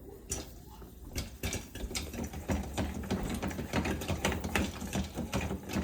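Popcorn maker running: a steady low hum under rapid, irregular clicking and rattling of kernels, thickening after about a second.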